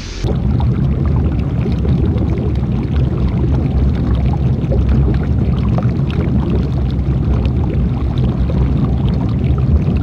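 Water splashing and churning around an off-road vehicle as it drives through a shallow river, with its engine running steadily underneath.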